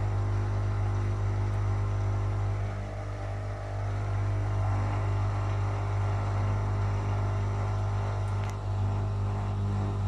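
Whirlpool FL 5065 front-loading washing machine running, its motor humming steadily as the drum turns wet laundry.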